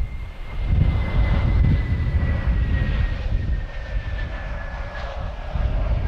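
Airbus A321neo airliner with Pratt & Whitney PW1100G geared turbofans on final approach, flying low and close with landing gear down. Its engines give a steady whine whose pitch slides slowly downward as it passes. Strong wind on the microphone adds a gusty low rumble underneath.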